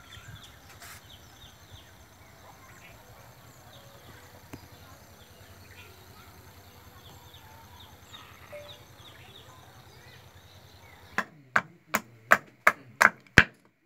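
A knife blade is hammered down into a wooden block: seven sharp knocks, about three a second, starting near the end. Before that there is only a faint outdoor background with small birds chirping over and over.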